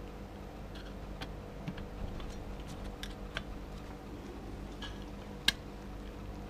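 Light metallic clicks and taps of a small screwdriver and hands working on a Ford AOD transmission's front pump, freeing the intermediate clutch spring retainer, with one sharp click about five and a half seconds in, over a steady low hum.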